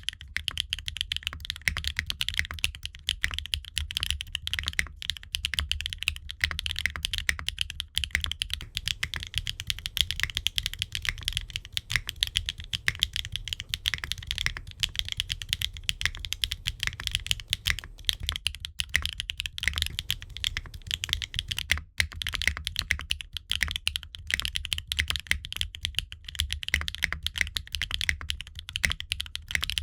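Mechanical keyboard with HMX Meteor linear switches, in a gasket-mounted aluminium Qwertykeys Neo65 case with ABS Cherry-profile keycaps, typed on quickly and steadily: a dense run of key strokes with a brief pause about 22 seconds in.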